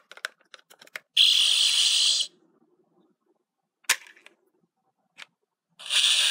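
Power Rangers Master Morpher toy handled with a coin inserted: a few sharp plastic clicks, then a noisy electronic sound effect of about a second from its small speaker, another click, and a second burst of the same effect near the end.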